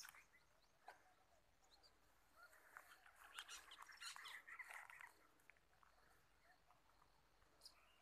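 Near silence in open countryside, with faint scattered crackles and chirps for a couple of seconds near the middle.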